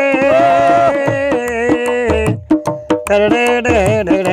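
A man singing a sustained melody without clear words, accompanied by a hand-played dholak; about halfway through, sharp dholak strokes come in quick succession under the voice.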